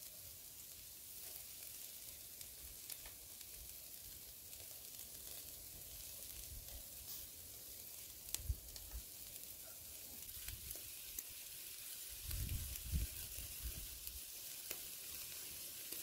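Pork shashlik skewers sizzling over hot charcoal in a mangal: a steady hiss with scattered small crackles. A brief low rumble near the end.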